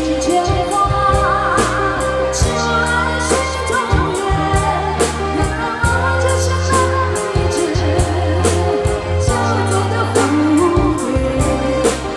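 A singer performing a song over music with a steady drum beat and bass line.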